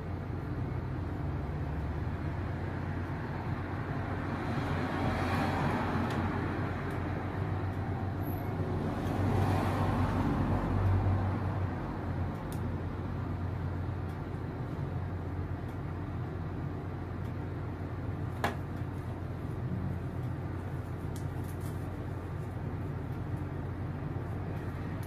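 Street background noise over a steady low hum, swelling and fading twice as vehicles pass, about five and ten seconds in. One sharp click comes about three quarters of the way through.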